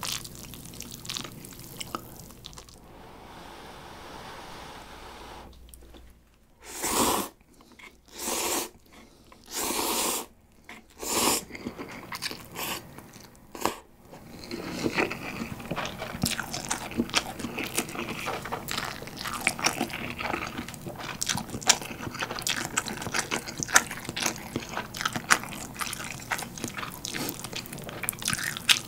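Close-miked eating of instant cup ramen: four loud slurps of noodles in the middle, then wet chewing with dense small clicks.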